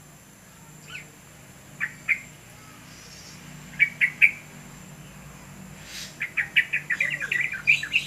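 Caged yellow-vented bulbul calling: a few short, sharp chirps in the first half, then a fast run of chirps from about six seconds in.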